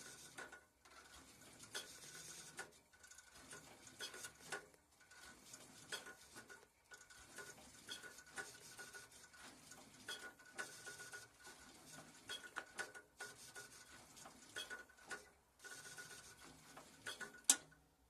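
Cub Cadet 129 garden tractor's starter cranking the cold, choked engine in repeated short bursts with clattering, with a faint whine coming and going. The engine does not catch.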